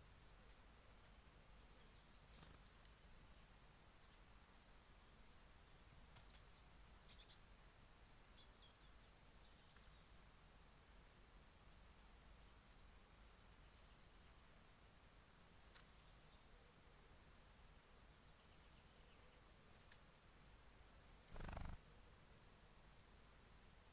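Faint, high, short bird chirps, each dropping slightly in pitch, repeating about once a second over quiet woodland background, with a few sharp clicks and one brief louder noise near the end.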